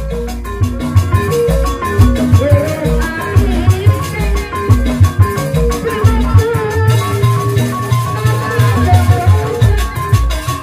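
Live Sundanese jaipongan music in bajidoran style: kendang hand drums playing deep, quick strokes under the ensemble's melody.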